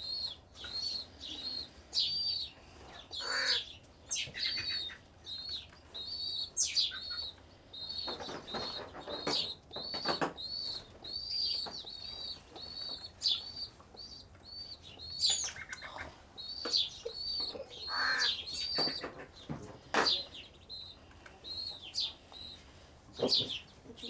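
Baby birds cheeping: a steady run of short, high chirps at about two a second, with rustling now and then from a nestling pigeon being handled.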